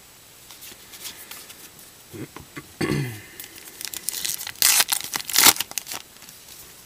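A 2014 Topps Gypsy Queen baseball card pack wrapper being torn open and crinkled by hand. The crackling comes in uneven bursts and is loudest in a couple of sharp rips about five seconds in.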